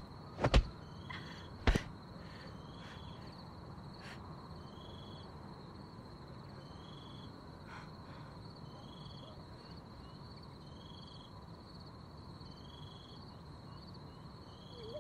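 Quiet night ambience of insect-like chirping: short chirps repeating about once a second over a thin steady high tone, preceded by two sharp knocks in the first two seconds.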